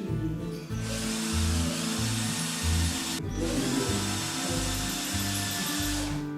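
A handheld power tool working wood, most likely a drill, runs in two stretches of a couple of seconds each with a short stop between, over background music with a steady bass beat.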